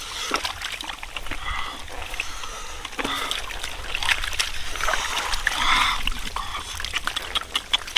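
Wet slapping, squelching and small splashes as live catfish on wet mud are handled by hand, with many short sharp clicks scattered through.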